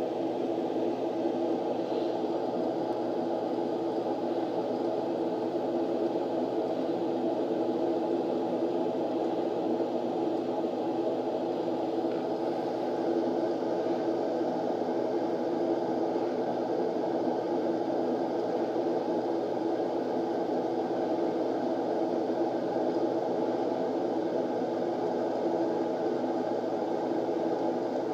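A steady, even background hum and hiss that does not change.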